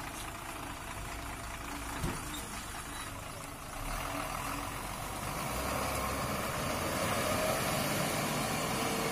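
Diesel tipper lorry's engine idling, with a single knock about two seconds in, then the engine getting louder from about four seconds in as the lorry moves off in reverse.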